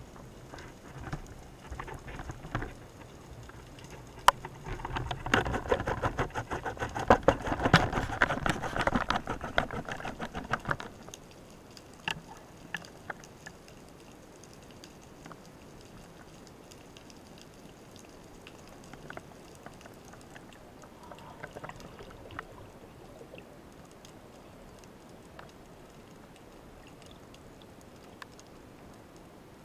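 Underwater sound picked up by a spearfisher's camera: moving water rushing and crackling for several seconds, then a quieter steady hiss with scattered sharp clicks.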